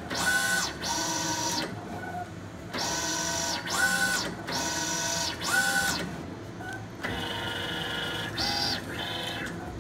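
Mimaki JV33-130 wide-format inkjet printer printing a calibration test pattern: the print-head carriage sweeps back and forth across the media in repeated passes. Each pass is a short motor whine that rises and falls in pitch, with brief pauses between runs.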